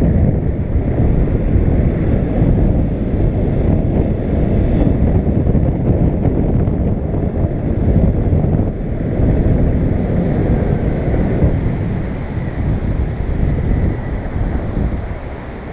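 Wind buffeting the microphone on a moving Gotway (Begode) electric unicycle, a loud steady low rumble of air and road, with a faint high steady tone above it. The rumble eases a little near the end.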